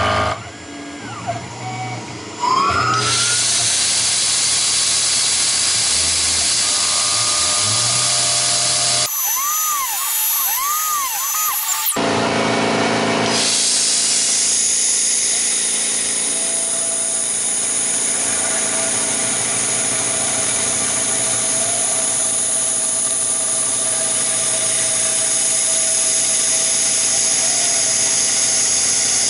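Tormach PCNC 1100 CNC mill spindle running and cutting brass: a steady high hiss with a fixed whine. About a third of the way in, a different sound with a repeated swooping tone briefly cuts in for a few seconds.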